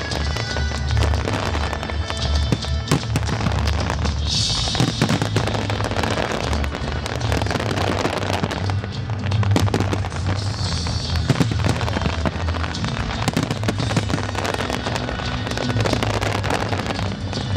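Fireworks bursting and crackling in quick, irregular volleys, with hissing bursts a few seconds in and again near the middle, over loud music with a steady deep bass.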